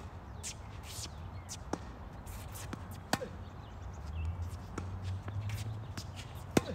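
Tennis racket striking the ball in a rally: three loud pops about three seconds apart, at the start, near the middle and near the end. Between them come fainter pops of the ball bouncing and the far player's returns, over a low rumble that swells in the middle.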